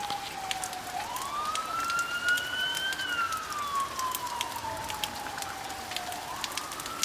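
Police car siren in wail mode, slowly falling and rising in pitch about twice, warning people outdoors to take shelter from an approaching tornado.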